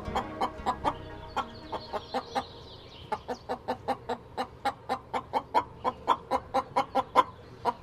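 Chicken clucking: a steady run of short clucks, about four to five a second, growing louder toward the end.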